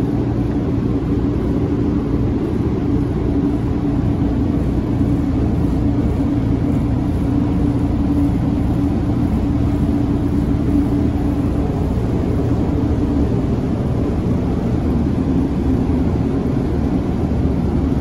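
United Coolair commercial HVAC unit running: a steady machine rumble with a constant hum.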